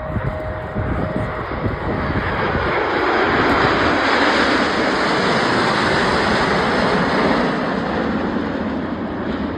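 Snowbirds CT-114 Tutor jets passing overhead. The jet noise swells over a couple of seconds, holds loud for about four seconds, then fades away.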